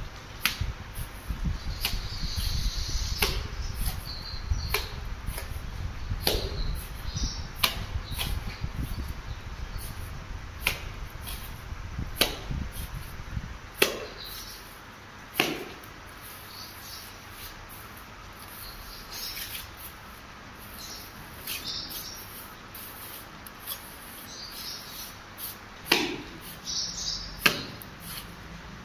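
Steel trowel working wet cement mortar: scattered sharp clicks and scrapes as the blade scoops mortar and strikes the heap and brickwork. A low rumble under the first half stops about halfway through.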